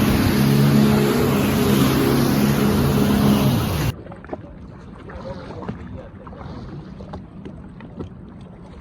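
A watercraft engine running fast over the water, a steady hum with wind and spray noise, which cuts off abruptly about four seconds in. After that only faint water and wind noise with a few small knocks.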